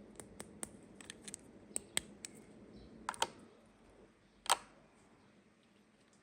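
Small plastic toy pieces being handled and set down, giving a run of sharp, irregular light clicks and taps. A louder clack comes about four and a half seconds in.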